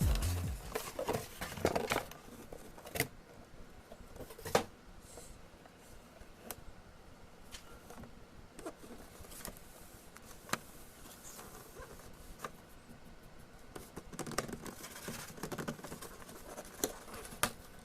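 Shoebox and packaging being handled and opened: scattered taps, clicks and short paper rustles, several seconds apart.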